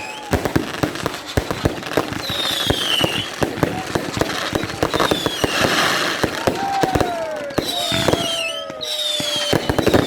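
Fireworks display: a dense run of sharp cracks and bangs, with several whistling tones falling in pitch.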